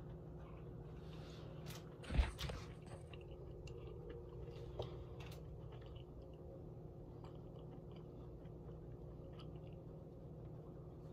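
A person chewing a mouthful of pizza, with small mouth clicks, over a steady low hum. About two seconds in there is one short, loud thump.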